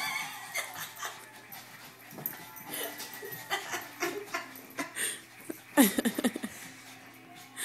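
Boston Terrier making excited vocal noises while playing, with a quick run of loud calls about six seconds in.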